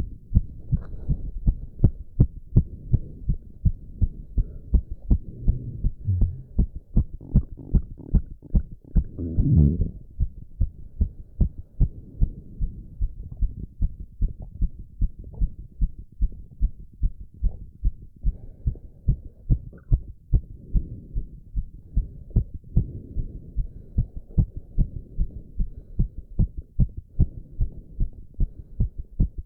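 A man's heart beating fast and regularly, its rate raised by squats. A low rushing runs between the beats, and there is a louder swell just before ten seconds in.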